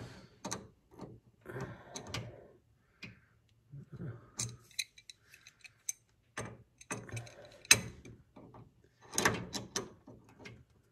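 Metal wrenches clicking and knocking against a hydraulic line fitting as its nut is double-wrenched tight, in irregular scattered clinks with short scrapes, the sharpest about eight seconds in.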